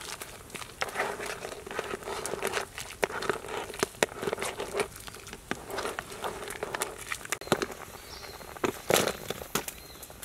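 Wooden spoon stirring whole crabs in a steaming wok of broth: irregular clicks, knocks and scrapes against the pan and shells over a light sizzling crackle, with a louder clatter about nine seconds in.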